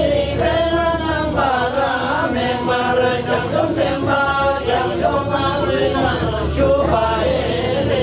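A group of men chanting a jhakri (shamanic) ritual chant together, several voices in continuous melodic phrases.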